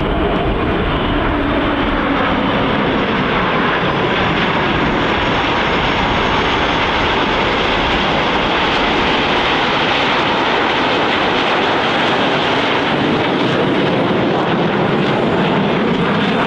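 Aermacchi MB-339 jet aircraft flying past with a loud, steady jet roar. The pitch falls in the first few seconds and rises again near the end as the jets pass and come round.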